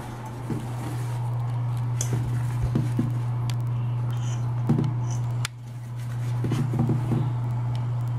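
Steady low hum, with scattered small clicks and scratches as a chinchilla shifts about inside a plastic hideout on a tile floor.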